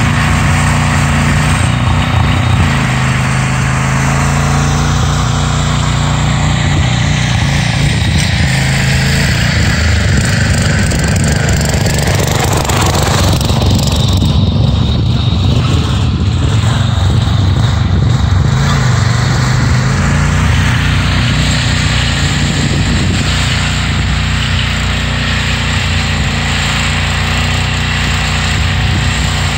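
Engine of a six-wheel Craftsman garden tractor running steadily under load as it climbs a snowy hill, passing close by around the middle.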